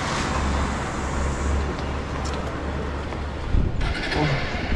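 Motorcycle engine idling at a standstill, a steady low hum, with road traffic noise around it. The sound shifts about three and a half seconds in.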